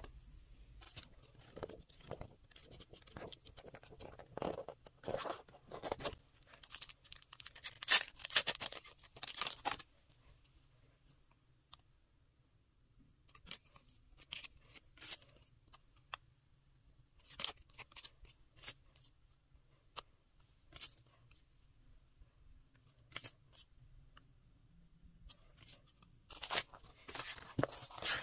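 Paper and card being handled: intermittent rustling, crinkling and small taps as photobook pages, photocards and a folded paper poster are moved. The rustling is busiest and loudest in the first third, thins to a quiet stretch and scattered taps, and picks up again near the end as the poster is unfolded.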